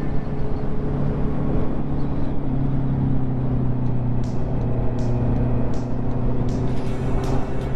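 Honda CB650R's inline-four engine running steadily while riding, its note stepping down slightly about two and a half seconds in, over a steady rush of road and wind noise.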